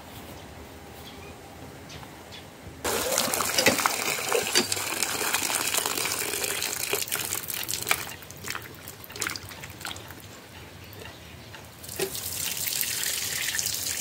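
Water gushing from an outdoor standpipe tap onto a concrete slab, starting suddenly about three seconds in, easing off for a few seconds past the middle and running again near the end. Splashes and clicks come through as mushrooms are washed in a pot under it.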